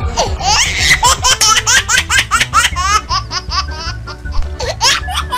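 Rapid high-pitched laughter in short rising bursts, over background music with a steady low beat.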